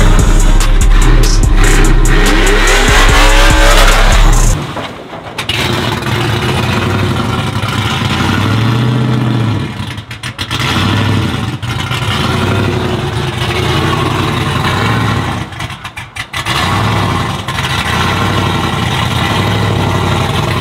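Chevrolet Silverado's built 5.7-litre V8 (a 5.3 bored out, with upgraded pistons and heads) revving hard while the truck spins its rear tyres in a burnout. It is loudest for the first four or so seconds, then runs on at lower revs, rising and falling. The truck goes into reduced-power limp mode during the run.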